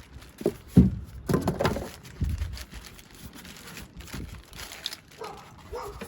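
Handling noise as a heavy 12-volt air compressor is worked out of its cardboard box and packaging: rustling with several dull knocks in the first two seconds, the loudest about a second in, then quieter rustling.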